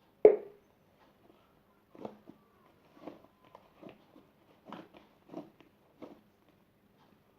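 Fluffy shaving-foam slime being squeezed and pulled by hand: a string of soft, short squelches and crackles roughly once a second, with one sharp, louder squelch just after the start.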